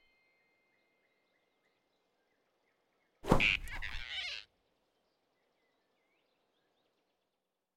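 Animated-film sound effect of a sudden grab: a thump and a rush of noise about three seconds in, lasting about a second, with a choked squeak from the flying squirrel as it is seized by the throat. Around it is near silence with faint bird chirps.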